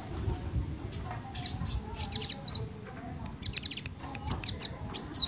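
A caged sogon (sogok ontong) songbird singing: groups of high, quick chirps and short rapid trills, some notes swooping down, with short pauses between phrases.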